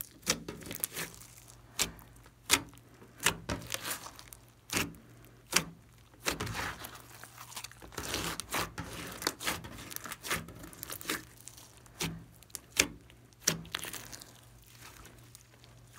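Hands kneading, folding and stretching glossy slime: sharp sticky pops at irregular intervals, about one every half-second to second, with longer sticky tearing noise as the slime is pulled apart, mostly in the middle and again near the end.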